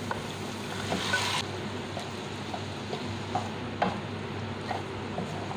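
Curd-marinated chicken pieces sizzling as they go into a pan of butter-fried onions, stirred with a wooden spatula. The sizzle is strongest for about the first second and a half, then settles into a steady frying hiss with a few light knocks of the spatula against the pan.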